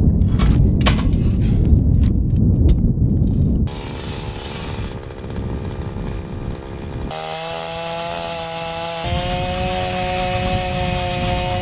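Ice auger motor running steadily while drilling holes through the ice, heard in short edited segments; its pitch steps up once part way through. Wind buffets the microphone in the first few seconds.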